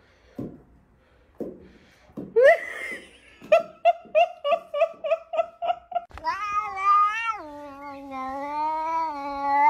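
Cats crying: a rising meow a little over two seconds in, then a quick run of short repeated cries, about four a second. Near the end of that run another cat starts a long, wavering yowl that lasts for the final few seconds.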